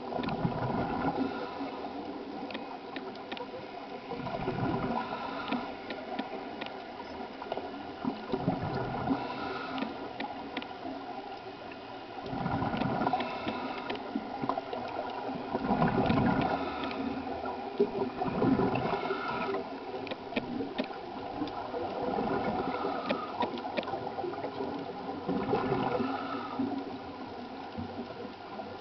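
Scuba diver's regulator breathing heard underwater: a gurgling rush of exhaled bubbles that swells every three to four seconds.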